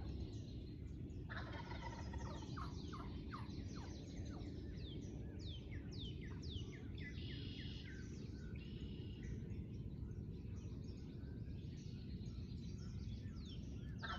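Wild turkey gobbling repeatedly, each gobble a short rattling burst. Small songbirds make quick falling chirps between the gobbles, over a steady low rumble.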